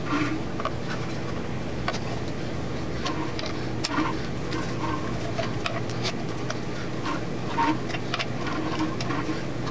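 Scattered light clicks and taps of hand tools working metal as the front timing cover is fitted onto a 5.3L LS engine block, over a steady low hum.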